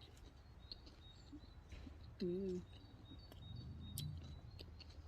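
Faint, thin, high bird chirps recurring in woodland, with a few soft clicks. About two seconds in comes a short low hum-like vocal sound, the loudest thing in the stretch.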